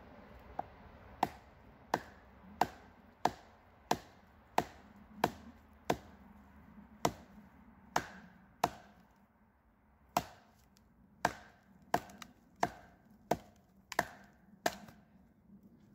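Hatchet chopping a branch laid across a log chopping block: a steady run of sharp wooden chops, about one and a half a second, with a brief pause a little past halfway.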